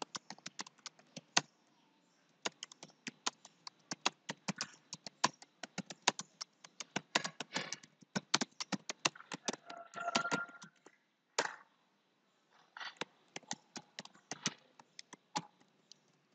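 Typing on a computer keyboard: quick runs of key clicks, broken by a couple of short pauses.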